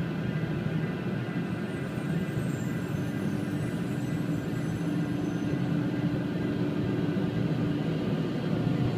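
Steady low mechanical rumble of an automatic car wash and the car's idling engine, heard muffled from inside the car, with a steady hum coming in about halfway through.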